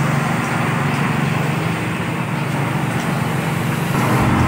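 A small engine running steadily with a low, even hum, getting louder about four seconds in.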